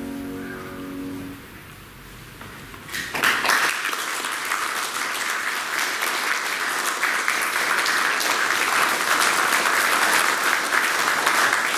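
Grand piano's final chord ringing out and fading over the first second or so, then after a brief hush an audience breaks into applause about three seconds in and keeps clapping steadily.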